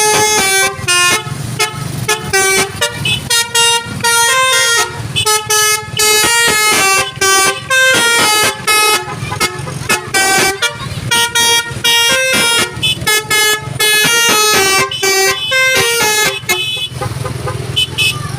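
Basuri 'telolet' multi-tone vehicle horn playing a fast tune, its notes changing several times a second, over a steady low hum. The horn stops near the end.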